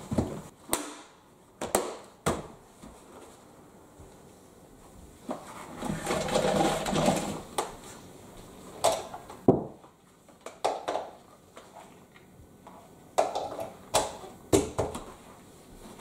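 Hard plastic knocks and clicks as the motor heads of Numatic Henry and Hetty vacuum cleaners are handled and seated on their tubs, irregular and spread out, with a longer rustling scrape about six seconds in.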